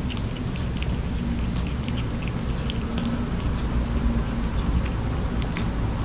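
A kitten chewing: many small, irregular clicks and crunches over a steady low hum.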